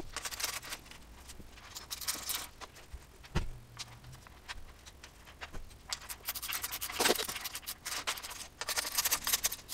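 Fast-forwarded hand work on a mountain bike frame: scattered small metal clicks, scrapes and rustles from a torque wrench and bottle-cage bolts being undone and a bottle mount being fitted.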